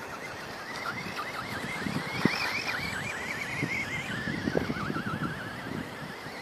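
Quanum Skull Crusher 1/10 brushless RC monster truck driving, its motor whine warbling quickly up and down as the throttle is worked, with a few sharp knocks from the truck bouncing over the ground.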